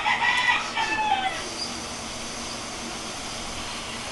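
A rooster crows for about the first second, its call falling away at the end. A steady hiss then begins and carries on as air is drawn through an e-cigarette's Double Cross atomizer while its coil fires.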